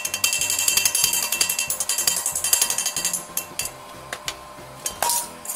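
Electric welding arc crackling for about three seconds as a bead is laid on a steel bar, then stopping, with a brief second burst near the end.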